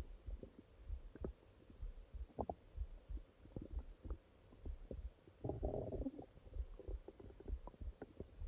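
Human stomach growling: a run of short, irregular gurgles and pops, with a longer bubbling gurgle about five and a half seconds in.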